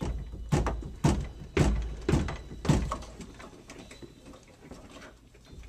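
About five heavy knocks roughly half a second apart, from handling at a radio studio desk close to the microphone, then faint rustling.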